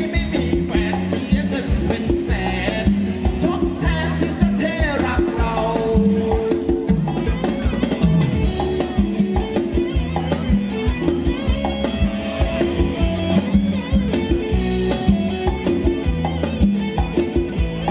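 Live band playing Thai ramwong dance music with a steady drum kit beat.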